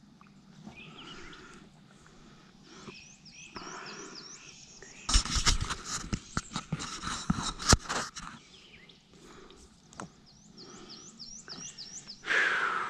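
A songbird singing a run of quick, repeated high chirping notes, twice over. Midway, a spell of sharp knocks and clatter from fishing rods and gear being handled in a plastic kayak.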